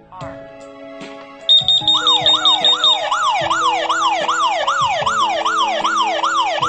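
Smoke detector alarm going off: rapid high-pitched beeps, about four a second, then a loud electronic siren sweeping up and down about twice a second, which stops at the very end.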